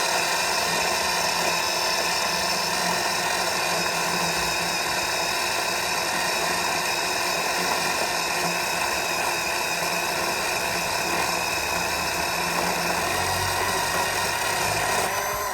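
Bauer chainsaw with an Oregon chain running at a steady full speed while cutting through a log near the saw's maximum cutting diameter, holding a constant pitch without bogging down.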